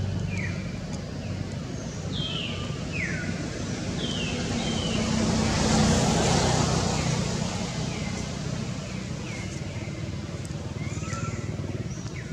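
A motor vehicle passing: a rush of noise with a low engine hum, swelling to a peak about halfway through and then fading. Short, high chirps that fall in pitch recur throughout.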